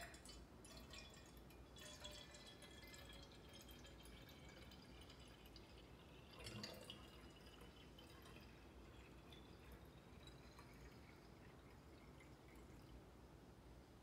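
Water poured in a thin stream from a plastic jug into the copper water reservoir of a Belgian balance syphon coffee maker, faint, its tone rising slowly as the reservoir fills. A brief louder knock about six and a half seconds in.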